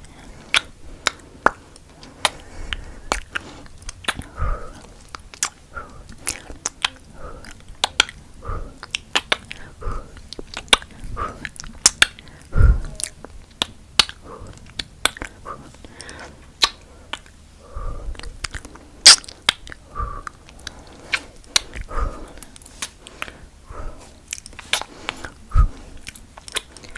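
Close-miked ASMR kissing sounds: a dense, irregular run of wet lip smacks and pops, several a second, with a few heavier smacks.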